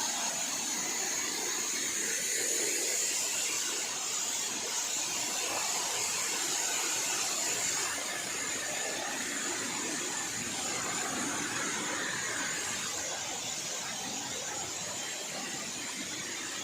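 Steady rush of a cascading waterfall, an even hiss of falling water. It fades a little in the second half.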